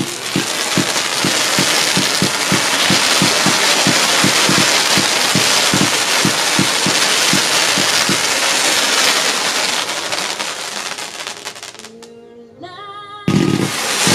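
A fireworks cake firing a fast string of comets: several launch thumps a second over a loud, steady hiss of burning comets. The firing dies down about twelve seconds in, and a fresh loud barrage starts near the end.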